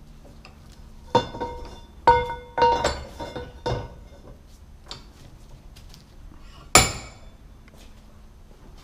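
Steel square tubing being handled and clamped in a bench vise: a run of metal clanks with a ringing note, about one to four seconds in, then a single sharp knock near seven seconds.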